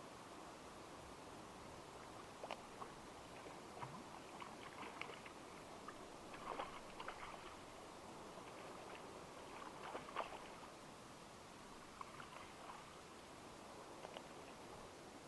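Hooked brown trout thrashing at the water surface close to the bank, making faint, irregular splashes, loudest about six and ten seconds in, over a steady hiss.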